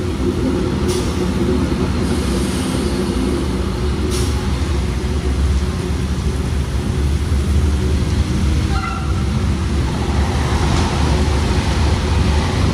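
ALn 663 diesel railcar's engine pulling away from a stop in a low gear, a steady low drone under load, while the wheels slip on the wet rails during the start.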